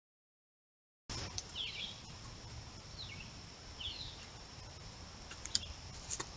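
Trail camera recording of woodland ambience: silent for about the first second, then a steady low rumble and a steady high hiss, with three short bird chirps and a few sharp clicks near the end.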